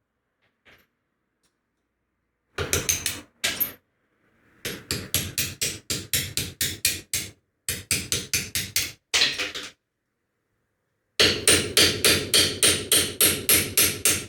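Hammer blows in several quick runs of about five strikes a second, with short pauses between the runs.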